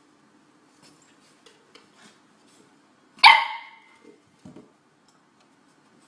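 A corgi puppy gives one sharp bark a little over three seconds in, amid a few faint taps of its paws on the wooden stair treads.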